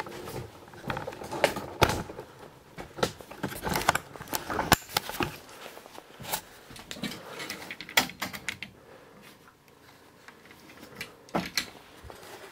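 Irregular sharp clicks and knocks over rustling: the handling noise of a person moving about with a handheld camera and gear. It eases off for a couple of seconds past the middle.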